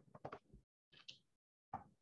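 Near silence: room tone with a few faint clicks and a brief soft rustle.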